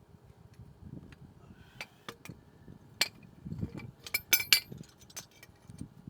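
Small metal parts and tools clinking and tapping together: scattered light clicks, one ringing clink about three seconds in, and a louder quick run of clinks a little past four seconds.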